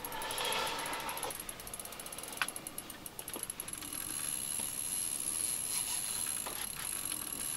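Fishing reel's drag, set very loose, ticking rapidly as a hooked whitefish pulls line out, easing about halfway through, with a few single clicks from the reel.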